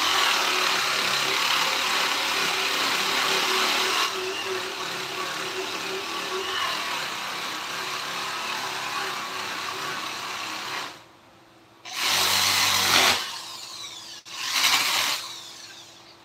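Handheld power tool working on wood: a long steady run that eases slightly partway through and stops, then two short bursts, each winding down after it is switched off.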